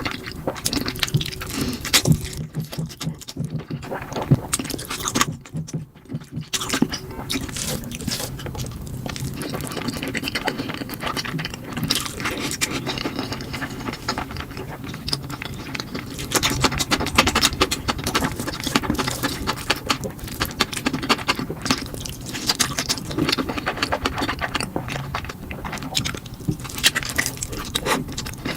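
Close-miked eating of spicy instant fire noodles: chewing and slurping, with many small wet clicks and smacks coming in quick succession.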